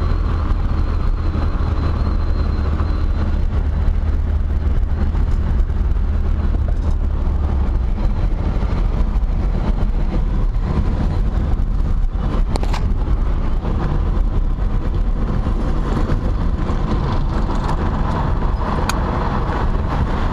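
1976 BMW 2002's four-cylinder engine running with road noise, heard from inside the cabin while driving; the low engine note changes about eight seconds in. The car has a brand-new muffler and runs quietly.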